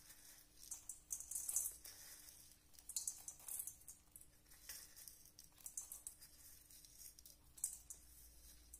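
Dry, crisp sev (fried gram-flour noodles) sprinkled by hand from a plastic bowl onto puffed rice in a steel bowl: faint crackling rustles in several short bursts.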